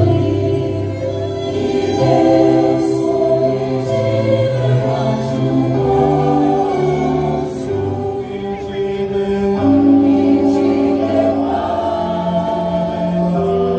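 Orchestra with strings playing slow, sustained chords under singing voices, in a stately hymn-like piece.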